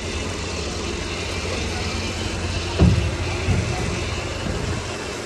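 Steady low engine drone of a sugarcane crusher running, with one dull thump about three seconds in.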